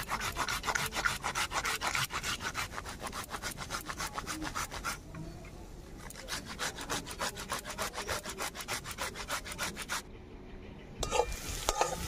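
A tomato rubbed up and down a flat metal hand grater in quick, even strokes, about five a second, easing off briefly midway and stopping about ten seconds in. About a second later comes the scraping of a spatula stirring onions as they fry in a wok.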